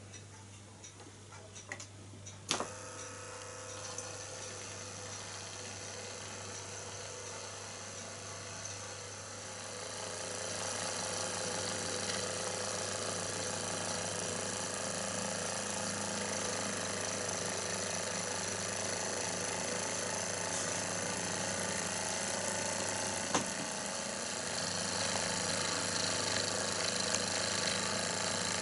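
Philcraft Penny miniature engine running on air from the small USB-powered compressor built into its base: a steady mechanical whir with a rapid ratcheting clatter. It picks up about a third of the way through and steps up again near the end. A sharp click comes a couple of seconds in, and another later.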